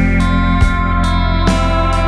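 Instrumental music: layered, sustained tones over a steady low drone, with new notes struck twice.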